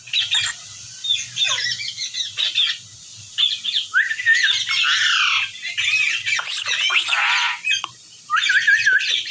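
Indian ringneck parakeet squawking and chirping in a quick run of short, high, warbling calls, broken by brief lulls about three seconds in and near the end.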